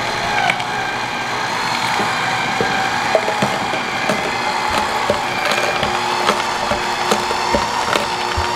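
Two slow masticating cold-press juicers running with a steady motor whine, their augers crushing carrots with irregular crackling and snapping.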